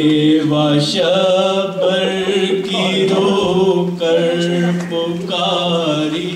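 A male voice chanting an Urdu noha (a Muharram lament) unaccompanied, holding long notes that step up and down in a slow melody.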